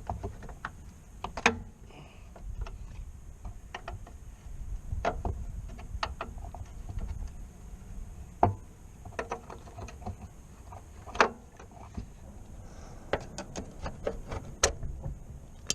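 Irregular metallic clicks and taps of a wrench working a rear brake line fitting on a 1977 Toyota Celica loose, with a few louder knocks.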